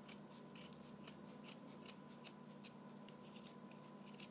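Pink-handled Westcott scissors snipping, a quick run of quiet, short cuts at a few per second as they trim the edge of a ghost cutout.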